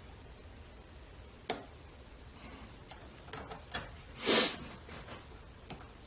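Lock pick and tension wrench clicking in the keyway of a Western Electric 30C lock during picking: a sharp click about one and a half seconds in, a few small clicks, then a brief, louder rustle of handling about four seconds in.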